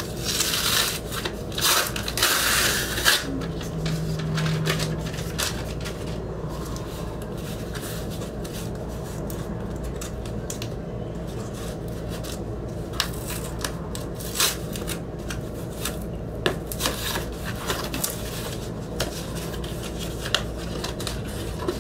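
Small cardboard mailer box being handled and opened by hand: cardboard rubbing and scraping, densest in the first three seconds, then scattered light taps and rustles over a steady low hum.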